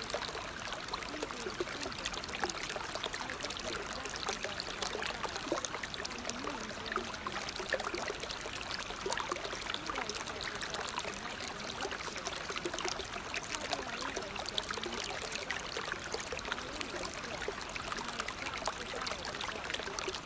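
Steady running water, like a flowing stream, continuous and even throughout.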